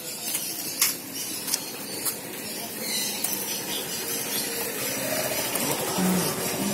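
Steady hissing street ambience with a few sharp clicks in the first couple of seconds and a brief faint voice near the end.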